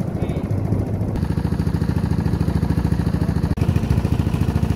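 Small wooden boat's petrol engine running steadily under way, a fast, even chugging with a deep low tone.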